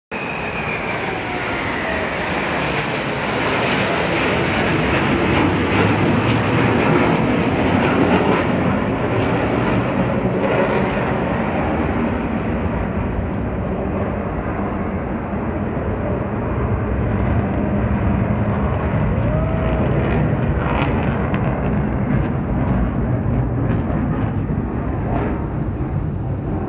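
Jet aircraft flying overhead: loud, dense jet engine noise that builds to its loudest about five to eight seconds in and then slowly eases off, with a falling whine at the start as a jet passes.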